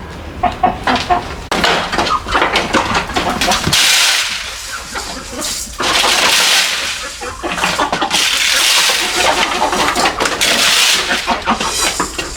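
Chickens clucking, with loud stretches of rustling or hissing noise about four seconds in and again from about eight seconds in.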